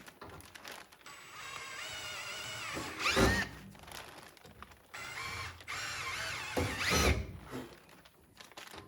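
Power drill drilling out holes in a galvanised steel tailgate skin: two runs of a wavering whine as the bit cuts, each ending in a louder burst, about three and seven seconds in.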